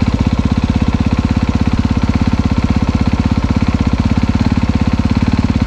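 2023 Honda CRF250R's fuel-injected single-cylinder four-stroke engine idling steadily with an even, fast exhaust pulse, still warming up after a cold start.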